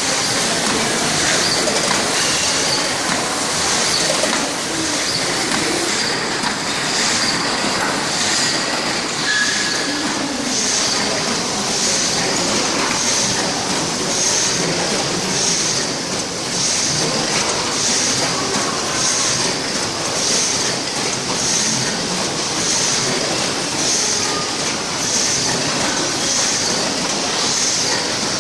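OPTIMA-1700DS automatic flatbed die cutting machine running in production, a continuous mechanical clatter with a hissing beat repeating a little over once a second as it feeds and cuts corrugated board sheet after sheet.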